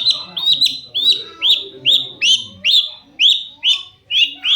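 Long-tailed shrike (cendet) calling: an even run of sharp, high, upward-flicking notes, about two a second.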